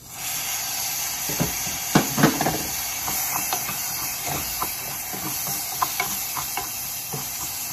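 Long-grain rice and diced red bell pepper sizzling in hot oil in a saucepan, a steady hiss, while a wooden spoon stirs them, scraping and knocking against the pan. The loudest knocks come in a cluster about two seconds in.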